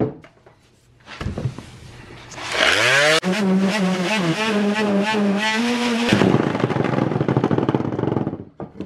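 Corded electric palm sander starting up with a rising whine, running at a steady hum for a few seconds, then going on as a rougher buzz before it stops near the end.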